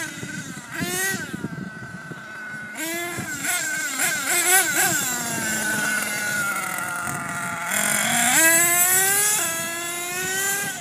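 Small two-stroke engine of a radio-controlled nitro/gas truck revving up and down as it drives, its pitch swinging with each throttle change and climbing steadily near the end.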